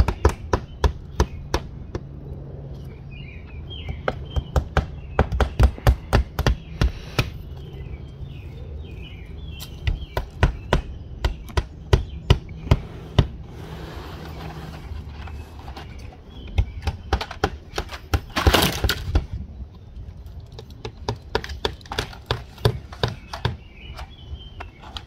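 Claw hammer driving nails through vinyl siding into the wood wall behind: quick runs of sharp blows, one nail after another. About three-quarters of the way through there is one brief, louder noise.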